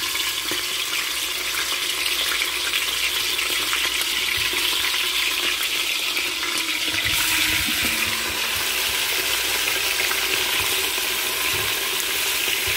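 Chunks of seasoned goat meat sizzling in hot oil in a pot as they are added and moved with a spatula: a steady frying hiss with fine crackling pops, a little stronger from about seven seconds in.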